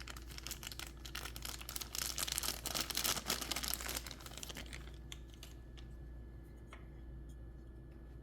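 Knife packaging being unwrapped by hand: crinkling and tearing, loudest about two to four seconds in, then dying away after about five seconds to a few soft ticks.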